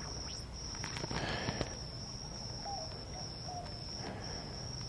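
An insect trilling steadily at a high pitch, with a few brief gaps, over faint outdoor ambience. Faint clicks and rustles come about a second in as hands handle the light fixture's wire connections.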